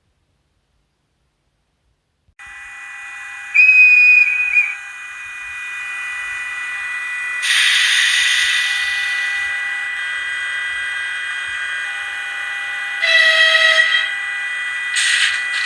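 Sound decoder in an HO-scale model of a ČD class 163 electric locomotive playing its locomotive sounds through the model's speaker. About two seconds in it switches on from silence into a steady high whine of the locomotive's electrics. A short, wavering high whistle follows about a second later, and there are several loud bursts of hissing air.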